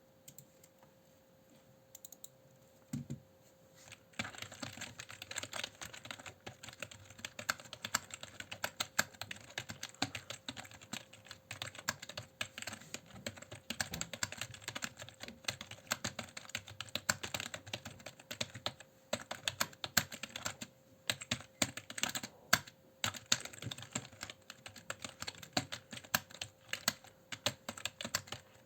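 Typing on a cheap Tracer computer keyboard: a few single key presses, then from about four seconds in a continuous run of fast key clicks with occasional louder strikes. A faint steady hum sits under it.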